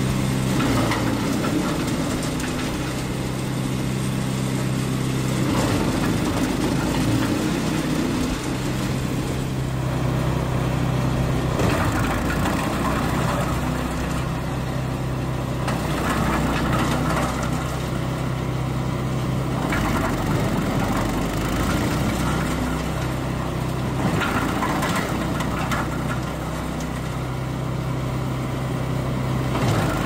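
Bystroň Pirana Longa wood chipper with its 14 hp Kohler petrol engine running steadily, while its self-feeding screw auger cuts fed-in branches into chunks in bursts of chipping noise every few seconds.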